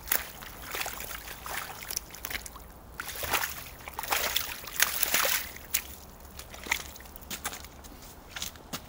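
Tall leather boots squelching through wet clay mud and splashing in shallow puddle water, an uneven run of steps that is busiest in the middle.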